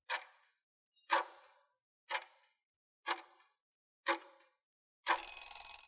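Countdown-timer clock ticking sound effect: sharp ticks, one each second, five times. Near the end comes a brief noisy sound lasting under a second as the count runs out.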